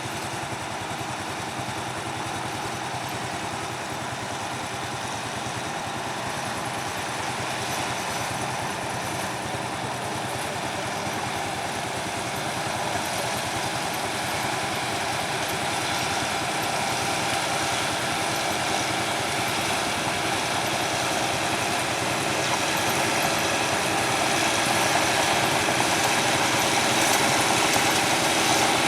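Heavy machinery engine running steadily, growing gradually louder.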